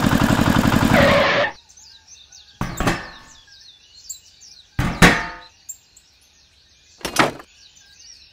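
A small engine runs with an even chugging rhythm and cuts off suddenly just over a second in. Three separate sharp knocks with a short ring follow, the middle one the loudest, while birds chirp faintly throughout.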